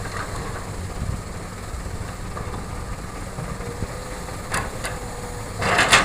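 Diesel engine of a Hitachi excavator running steadily with a low rumble, with two brief clicks and then a short, louder noisy burst near the end.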